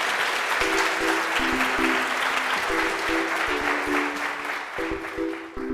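An audience applauding. About half a second in, outro music of short repeated chords comes in underneath, and the clapping dies away near the end while the music carries on.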